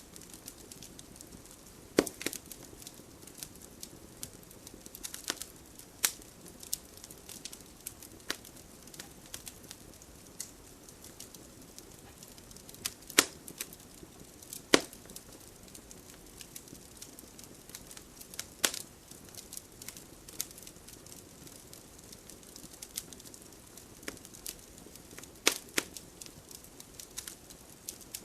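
Wood fire in a fireplace crackling, with a low steady hiss and irregular sharp pops and snaps, a few of them much louder than the rest.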